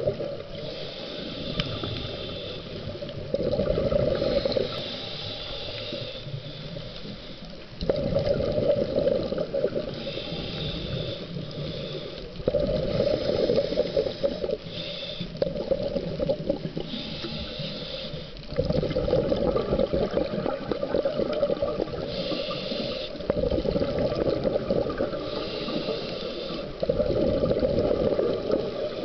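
Scuba diver breathing through a regulator, heard underwater: a short high hiss on each inhale, then a louder burst of bubbling on each exhale, repeating every few seconds.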